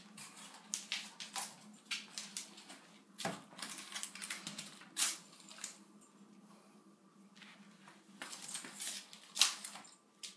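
A dog tearing at an onion with its teeth and nudging it across the floor: irregular small clicks and crackles of the papery onion skin, with a quieter stretch after the middle and the loudest click near the end.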